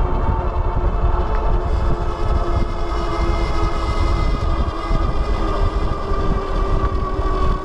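Wallke H9 AWD e-bike's hub motors whining under way, several steady tones held together, over wind rumbling on the microphone.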